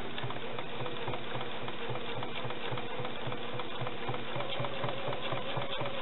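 Domestic sewing machine running steadily during free-motion stipple quilting, the needle stitching in a rapid, even rhythm over a steady motor hum.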